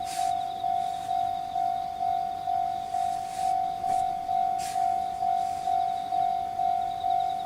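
Japanese railway level-crossing alarm ringing: a single-pitched ding repeated steadily, about two a second, each stroke dying away before the next.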